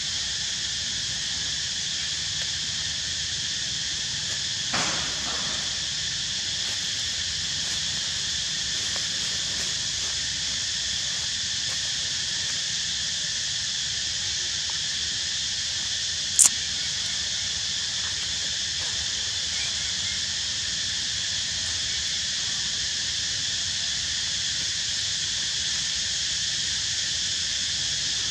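Steady, high-pitched insect chorus going on without a break. A short knock about five seconds in and a single sharp click at about sixteen seconds stand out against it.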